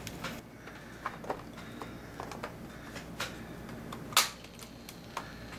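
Handling clicks from a 1966 Mercury TR 8000 (Philips EL-3301) cassette recorder as its hinged lid is lifted and its controls are worked: a handful of light plastic clicks and knocks, with one sharper, louder click about four seconds in.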